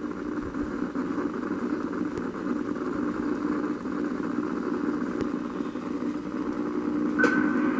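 A steady mechanical hum, like an engine idling, with a brief click near the end.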